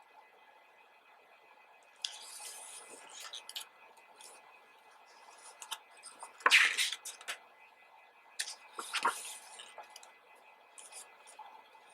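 Glossy pages of a photobook being turned and handled: scattered paper rustles and light taps, loudest about six and a half seconds in and again about nine seconds in.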